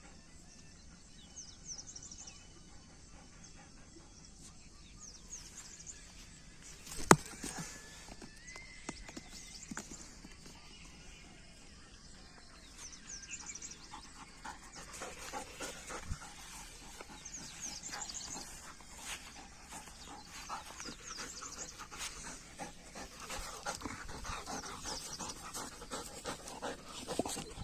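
Doberman panting, thicker in the second half, over short high chirps, with one sharp knock about seven seconds in.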